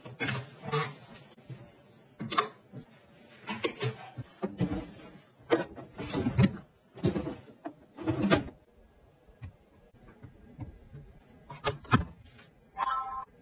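Close clicks, knocks and rustles of household organisers being handled: clothes hangers on a metal closet rail, and a clear plastic drawer pulled out from under a shelf. Near the end comes a brief electronic chime as a phone is set on a wireless charging pad.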